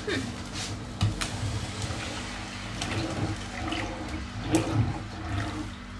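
A pot of milk boiling on the stove: irregular bubbling and popping over a steady hiss, with a low steady hum underneath.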